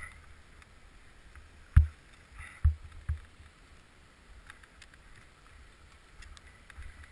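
Several dull thumps and knocks over a low wind rumble on a helmet-mounted action camera's microphone. The loudest thump comes about two seconds in, and two softer ones follow within about a second.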